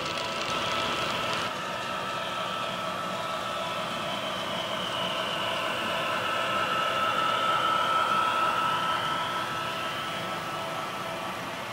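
HO-scale model train running: the whir of the model diesel locomotives' motors and gears with wheel noise on the track, growing louder to a peak about eight seconds in as the locomotives pass, then easing off.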